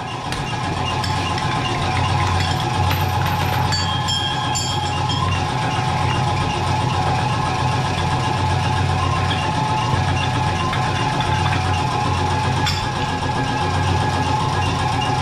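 A steady mechanical drone, like a motor running, with a few light metal clinks about four to five seconds in and another near the end, as the scooter's CVT drive-pulley parts are handled and lifted off the shaft.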